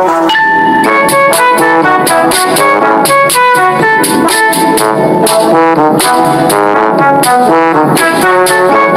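Background music with quick, short pitched notes over a steady beat.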